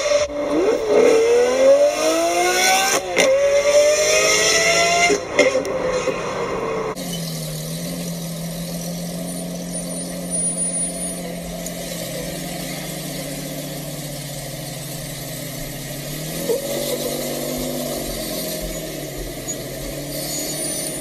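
Lamborghini supercar accelerating hard in a tunnel, its engine note climbing and dropping several times over about seven seconds as it revs through the gears. It then cuts to a Jeep Wrangler Rubicon's engine running low and steady as it crawls up a rock slab, revving up briefly and settling again near the end.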